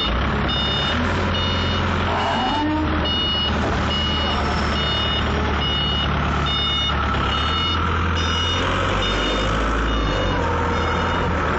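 Hangcha forklift reversing, its back-up alarm beeping just under twice a second over the steady low running of its engine.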